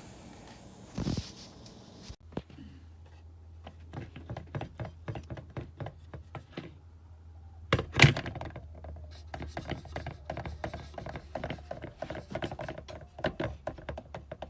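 Electric kettle being handled, with quick clicks and knocks and one loud thunk about eight seconds in. Under them a low steady hum starts about two seconds in.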